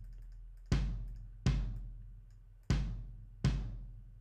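Solo kick drum track from a multitrack recording playing a repeating pattern: four hits in two pairs, each with a long, deep decaying tail carrying the room sound of the kick recording. It is played through an EQ that cuts the mids around 500 Hz to tame that room sound.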